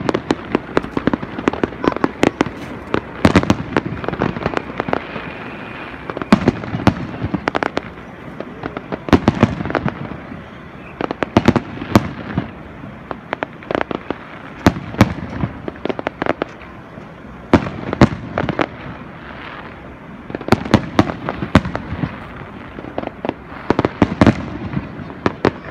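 Aerial fireworks shells bursting: an irregular, continuous run of sharp bangs, several in quick clusters every couple of seconds, with crackling between them.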